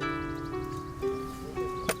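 Soft instrumental background music with plucked strings, notes changing about every half second, and a sharp click near the end.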